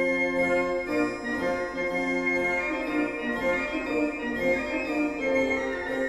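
Background music: sustained organ-like keyboard chords, the held notes changing about every second.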